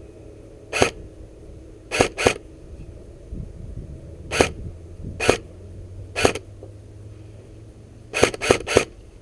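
Airsoft guns firing single shots, sharp pops at uneven intervals, ending in a quick string of three.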